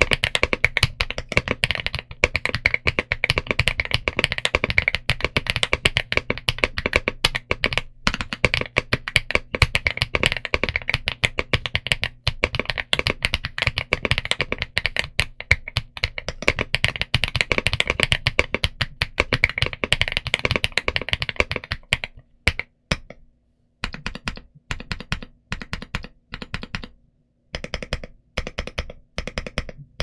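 Typing on a Geekzb Story65 R3 65% mechanical keyboard with Zuoce Litchi Milk tactile switches and GJ Jockey double-shot PBT keycaps, a dense unbroken run of keystrokes. About two-thirds of the way through it turns into short separate runs of presses with brief pauses between them.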